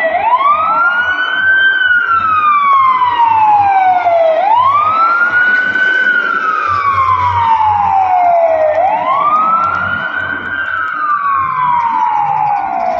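Emergency siren wailing: the pitch sweeps up quickly and then slides slowly down, repeating about every four and a half seconds, three times.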